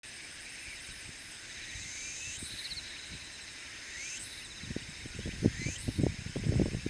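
Insects calling in a steady high-pitched chorus, with a rising sweep repeating about every two seconds. From about five seconds in, low irregular buffeting rumbles join in, loudest just past the middle of that stretch.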